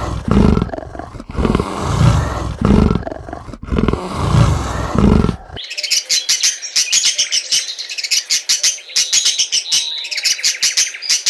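A leopard calling in a run of deep, rough grunts, about one a second. About five and a half seconds in it gives way to sun conures chirping, a dense stream of short high-pitched calls.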